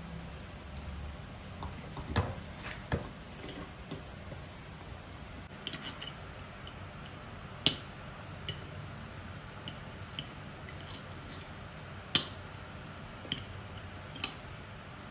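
Knife and fork clinking and scraping on a ceramic dinner plate while cutting a roast pork chop: about a dozen sharp, irregular clinks over a steady low hiss.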